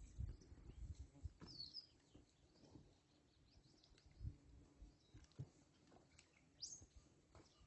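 Near silence outdoors with two brief, faint bird chirps, one about a second and a half in and a rising one near the end, over scattered quiet low thuds.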